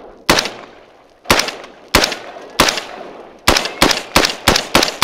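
AR-15-style 5.56 rifle fired semi-automatically, about nine shots: four spaced roughly two-thirds of a second to a second apart, then a quicker string of five at about three a second, each shot trailing off briefly.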